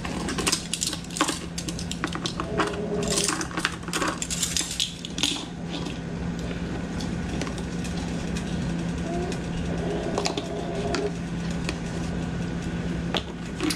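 Clinks and scrapes of a measuring spoon scooping cornstarch out of its container and tipping it into a plastic bowl of sugar. There is a quick flurry of clicks in the first five seconds, then quieter handling over a steady low hum.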